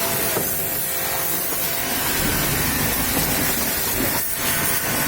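A pressure-washer water jet hissing steadily against a car's body.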